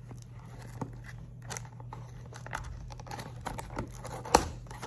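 Cardboard box being opened by hand: the packaging crinkling and tearing, with scattered small clicks and one sharp snap near the end that is the loudest sound.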